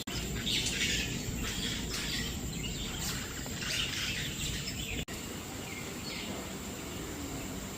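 Birds chirping in many short high calls over steady background noise, busiest in the first half, with a brief dropout about five seconds in.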